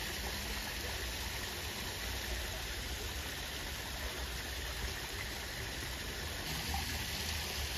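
Steady rush of running water from the pond in a monkey enclosure, an even hiss with no breaks.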